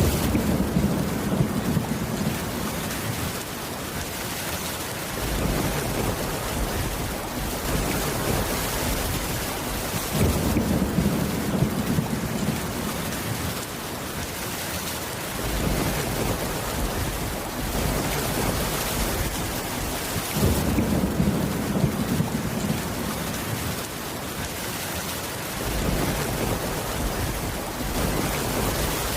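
Steady heavy rain with low rolling thunder rumbles that swell and fade about every ten seconds.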